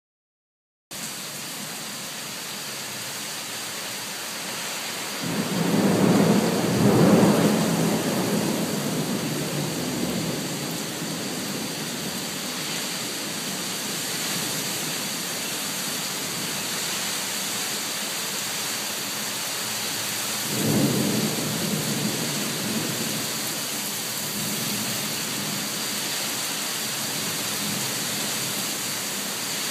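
Heavy thunderstorm: steady rain hiss with two rolls of thunder, a long loud one about five seconds in and a shorter one about twenty seconds in.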